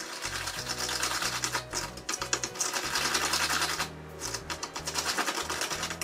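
Wooden stirring stick scraping round a small plastic cup of epoxy resin mixed with a gritty filler: a rapid, scratchy rasping that pauses briefly a little before four seconds in, then resumes. Background music runs underneath.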